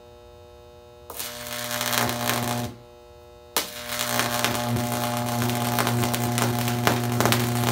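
High-voltage sodium arc buzzing loudly with crackles. It strikes about a second in, goes out suddenly after about a second and a half, then strikes again with a snap and burns on.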